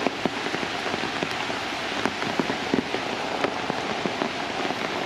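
Heavy rain falling on wet ground and puddles: a steady hiss dotted with the sharp taps of individual drops.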